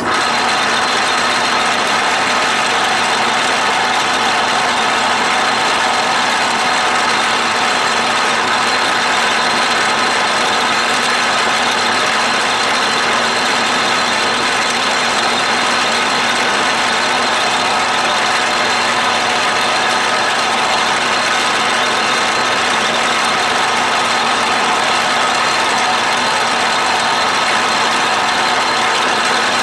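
Atlas/Craftsman 12-inch lathe running loud and steady, its spindle-mounted cutter milling a tooth into a steel gear blank fed past it by the power crossfeed.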